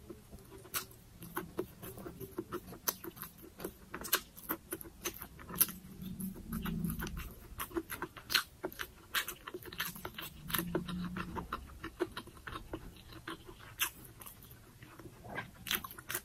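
Close-miked chewing of food: a steady run of wet, irregular mouth clicks and crunches. A low closed-mouth hum comes twice in the middle.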